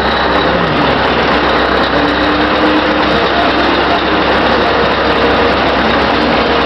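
Scania R620's 16-litre V8 diesel engine running as the truck drives, heard out of the open cab window with steady road and wind noise.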